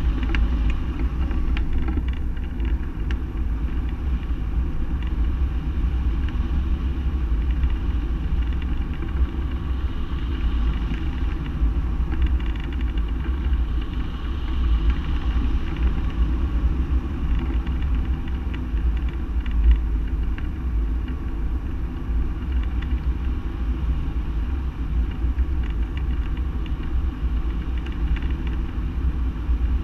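Steady airflow rushing over a hang glider's wing-mounted camera in flight: an unbroken low rumble of wind on the microphone.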